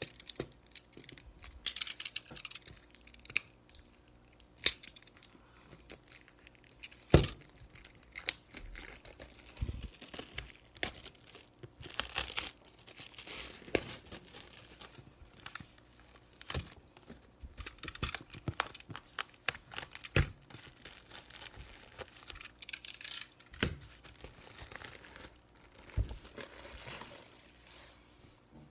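Plastic shrink wrap being torn and peeled off a cardboard collection box: irregular crinkling and tearing, with scattered sharp clicks.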